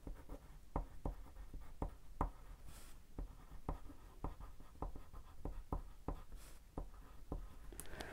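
Wax crayon rubbing on toothy cardstock: a steady series of short strokes, about two to three a second, as a Crayola Swirl crayon swatch is coloured in.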